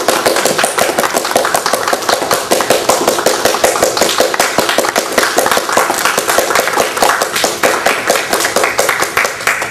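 A room full of people applauding: dense, steady hand-clapping.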